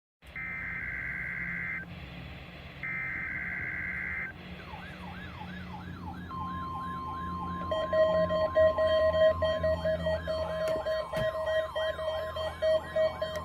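NOAA Weather Radio alert broadcast: two bursts of the Emergency Alert System's shrill digital data header, then the steady 1050 Hz warning alarm tone, with a weather-radio receiver's alarm sounding over it as a fast repeating siren-like sweep and a pulsing beep. This is the alert sequence of a required weekly test of the warning device.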